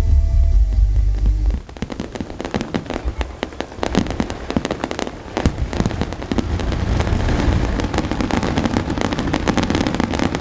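Music with a heavy bass stops abruptly about a second and a half in, giving way to a fireworks display: a dense, irregular run of sharp cracks and bangs, growing busier with a steady rumble underneath in the second half.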